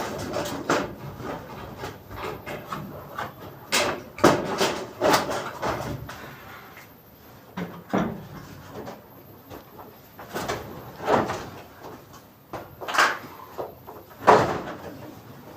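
Irregular knocks and scrapes, about eight over the stretch and spaced a second or more apart, like hard objects being handled and set down.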